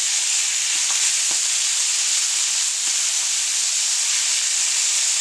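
Chicken livers frying in hot high-heat sunflower oil in a cast-iron skillet: a steady, even sizzle, with a few faint ticks.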